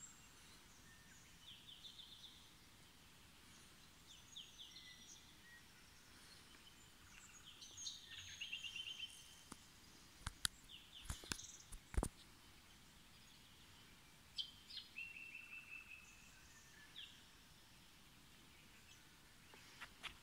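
Quiet bush birdsong: several birds chirping and trilling. A few sharp clicks about ten to twelve seconds in.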